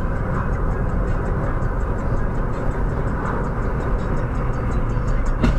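Car driving through city traffic, heard from inside the cabin: steady engine and road noise, with a single sharp click near the end.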